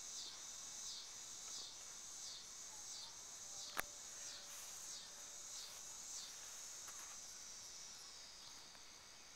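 Faint insect chorus: a high buzzing that pulses in repeated falling strokes a bit under twice a second, fading near the end. A single sharp click about four seconds in.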